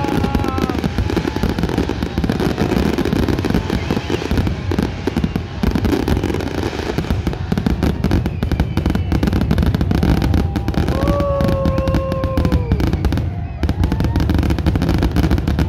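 Fireworks going off in a dense, continuous barrage of bangs and crackles, with voices from the crowd. About eleven seconds in, a single held tone sounds over it for about two seconds.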